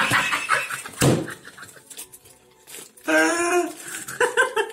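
A man and a woman laughing hard, ending in a quick run of short ha-ha pulses, with a sharp rustle or knock about a second in.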